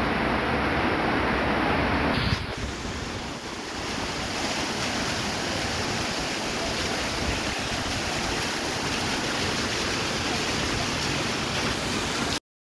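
Steady rushing noise of heavy rain and flowing floodwater. The sound shifts and becomes a little quieter about two seconds in, then cuts off suddenly near the end.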